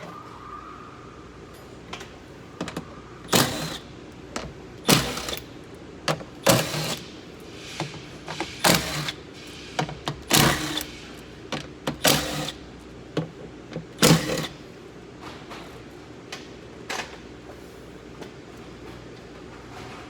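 A cordless power tool run in short trigger bursts, a dozen or so of them, as it unscrews the 10 mm bolts holding the door's window assembly.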